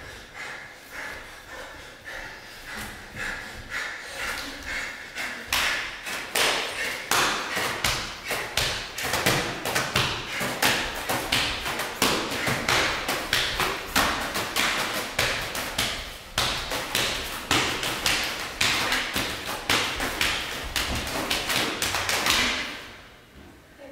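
Rapid, irregular thumps and taps, growing denser and louder a few seconds in and fading out near the end.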